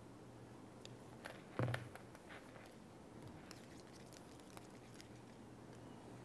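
Faint clicks and rustles of monofilament fishing line being threaded through a lead egg sinker by hand, with one louder knock about one and a half seconds in as the sinker is set down on the desk.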